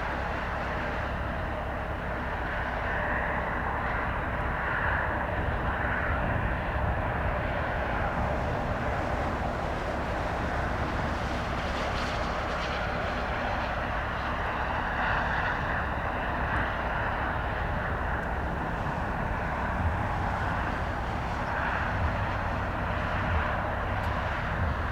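Steady low rumble of a diesel-electric locomotive and its train running at a distance.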